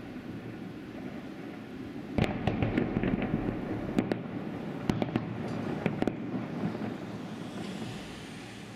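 Aerial fireworks shells bursting: a low rumble, then from about two seconds in a quick run of sharp bangs and crackles for about four seconds, easing back to a rumble.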